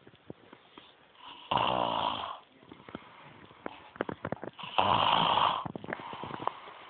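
A sleeping woman snoring loudly, two long raspy snores about three seconds apart, with small clicks in the lull between them.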